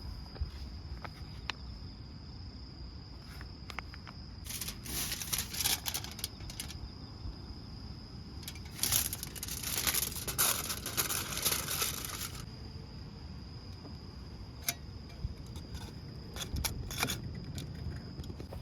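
Crickets chirping in one steady high tone. Over them come two stretches of rustling, hiss-like noise, the second longer, and a few light clicks.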